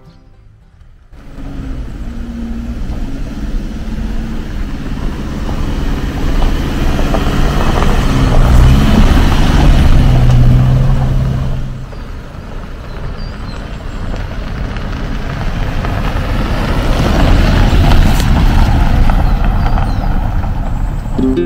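Subaru Forester SJ driving on a gravel mountain track: engine and tyre noise on the gravel build up as it comes close and passes. The sound drops away suddenly about twelve seconds in, then builds again as the car drives off.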